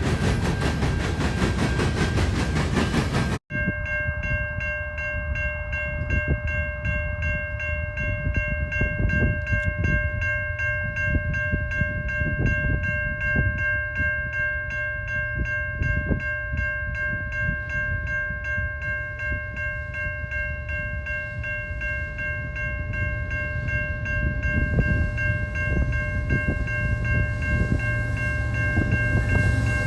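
Train rolling by with a low rumble and scattered wheel knocks. After a sudden cut a few seconds in, a steady high tone of several pitches holds to the end.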